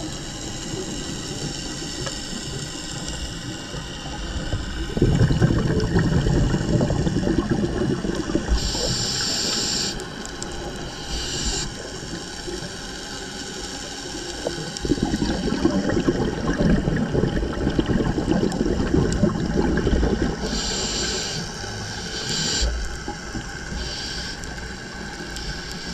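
Scuba diver breathing through a regulator underwater: two long bubbling exhalations, each about five seconds, with short high hisses from the regulator in between.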